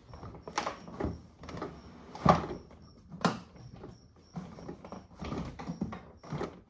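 Plastic body of a DOES Toys DT 7013 kids' ride-on car knocking and creaking as an adult climbs on and settles into the seat. The car is loaded far past its 25 kg rating. The loudest knock comes about two seconds in, with a run of smaller knocks near the end.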